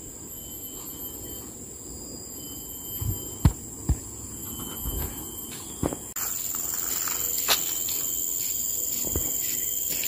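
Steady high-pitched insect drone from the surrounding trees, jumping louder about six seconds in. A few sharp knocks fall between three and six seconds in.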